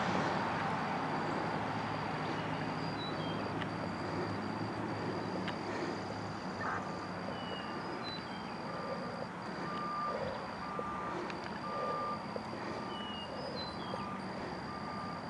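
Truck reversing alarm beeping in a steady repeating pattern over a diesel engine's low running. A second, lower-pitched beeping joins about halfway through.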